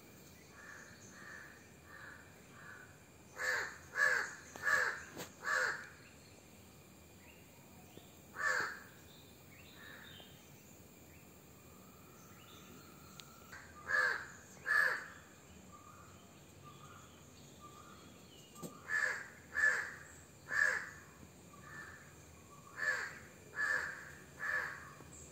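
Crows cawing: loud harsh calls in groups of two to four, with fainter caws from farther off in between.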